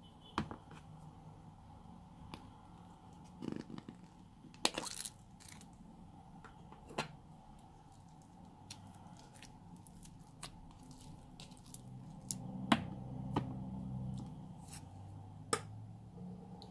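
Hands squeezing and peeling slime out of plastic containers: irregular small clicks and crackles from the slime and the containers, with a few louder cracks.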